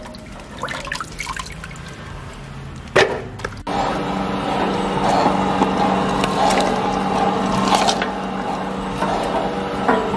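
Water sloshing and dripping as ginger roots are handled in washing water, then, a few seconds in, a steady machine hum cuts in suddenly: an electric juice-extracting machine running as ginger is fed into it and ground to pulp.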